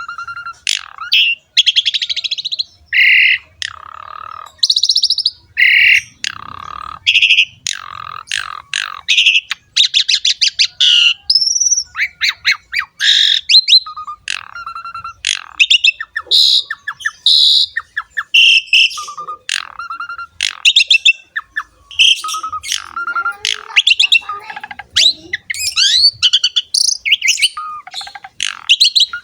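Javan pied starling (jalak suren) in full song: a long, varied run of whistles, rapid chattering trills, gliding notes and harsh squawky notes, broken only by brief pauses.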